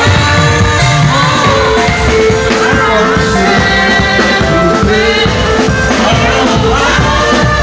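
Live gospel praise music, loud and steady: a drum kit with cymbals keeps the beat under held keyboard chords while voices sing.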